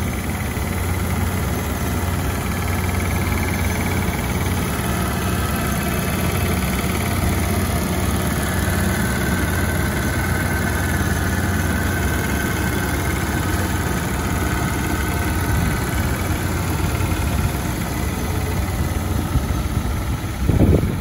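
Chevrolet S10's 2.2-litre four-cylinder engine idling steadily with the hood open, a low, even hum. A brief thump near the end.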